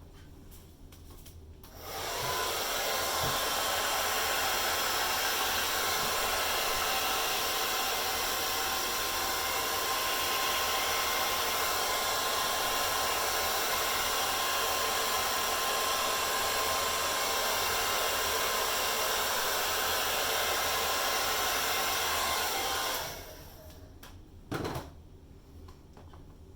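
Hair dryer blowing steadily, switched on about two seconds in and shut off about twenty seconds later, used to push wet acrylic pour paint across the canvas. A short knock follows soon after it stops.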